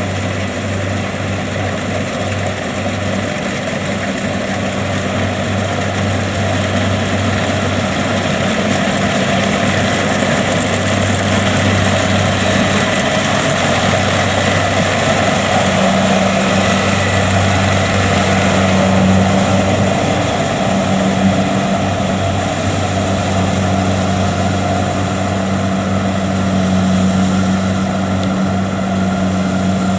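Kubota DC70 Plus combine harvester's diesel engine and machinery running steadily under working load, a constant loud mechanical drone.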